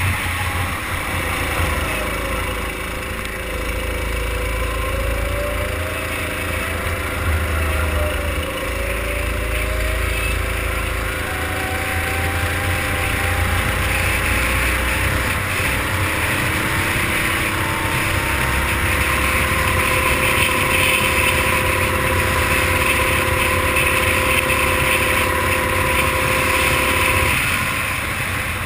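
Racing kart engine running hard on track. Its pitch falls and rises through the corners in the first ten seconds, then climbs steadily for about fifteen seconds along a straight before falling off sharply near the end as the kart slows for the next corner.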